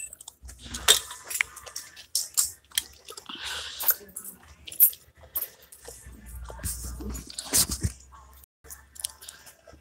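Handling noise: irregular clicks, crinkles and rubbing as a phone is moved about close to its microphone while sunglasses are handled on a store display rack.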